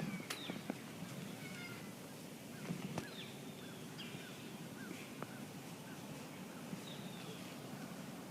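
Faint, short, high chirps that fall in pitch, repeated irregularly every half second to a second: small birds calling. A few light clicks are mixed in.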